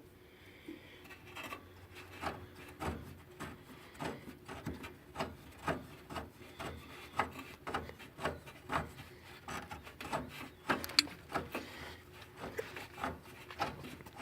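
Ratchet wrench clicking in repeated short strokes, about two clicks a second, as a rusted bolt holding the rear suspension arm bracket is backed out.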